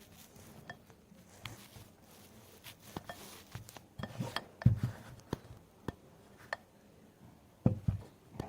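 Scattered light knocks and clicks of something being handled in a small room, with a louder knock about four and a half seconds in and another near the end.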